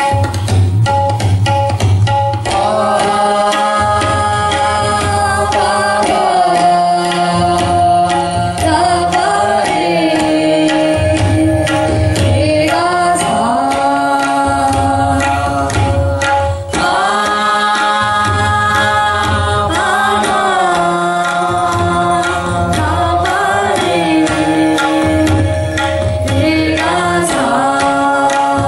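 Tabla ensemble: several tabla played together with sharp right-hand strokes throughout, while the players sing a melodic line into their microphones. Deep bayan (bass drum) strokes come and go in phrases.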